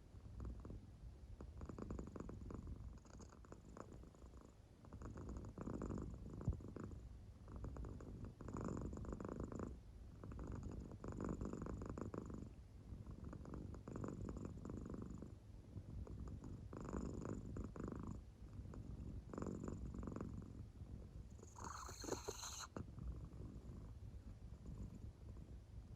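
American Shorthair cat purring faintly in deep sleep, the purr swelling with each breath about every two to three seconds. A brief, sharper noise cuts in near the end.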